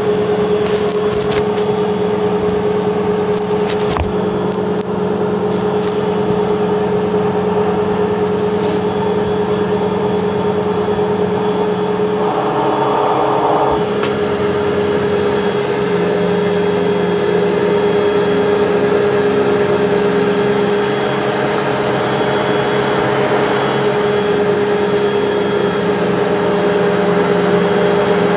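Sebo Automatic upright vacuum cleaner running steadily on carpet, its motor giving a loud, even whine. A few sharp clicks come in the first five seconds, and a louder rushing lasts a second or two about twelve seconds in.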